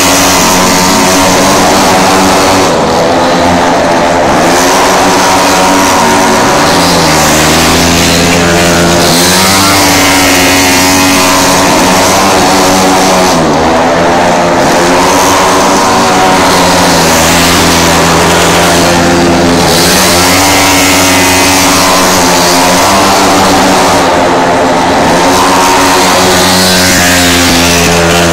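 Speedway motorcycles running around a shale track: loud engine note that rises and falls over and over as the throttle is opened and shut through the laps.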